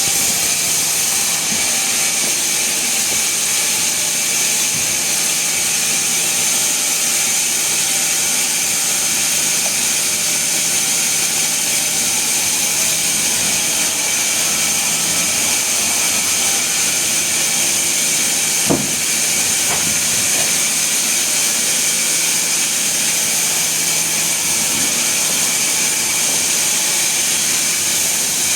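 Sawmill machinery running steadily, a loud even hiss over a faint hum, with one sharp click about two-thirds of the way through.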